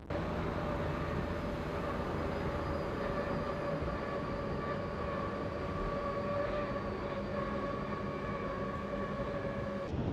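Racing powerboat engines running flat out at steady high revs, a sustained drone with a steady whine over a rumble. It cuts in suddenly at the start.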